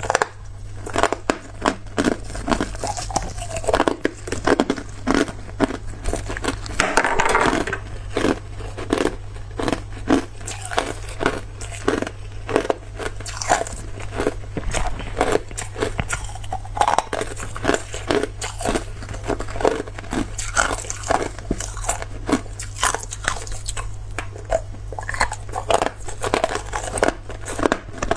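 Zhaofeng hard clear ice being bitten and chewed close to the microphone: dense, repeated sharp crunches, several a second. A steady low hum runs underneath.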